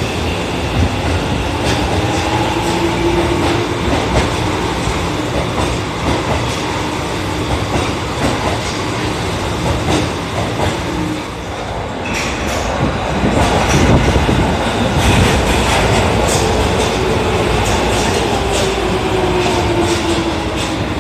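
Tokyo Metro Marunouchi Line subway train moving along the platform, its electric traction motors whining in tones that slide up and down, over a steady rumble and repeated clicking of wheels on the track. The sound changes abruptly about twelve seconds in, where another train pass begins.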